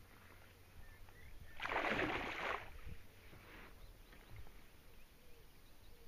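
A small pike splashing at the water's surface as it is lifted out on the line: one loud splash of about a second, and a fainter one shortly after. A low rumble runs underneath.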